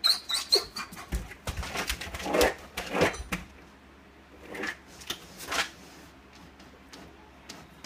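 Tibetan Mastiff puppy giving a short high whine, then scratching and pawing at a closed door in irregular flurries: separation distress at being left behind.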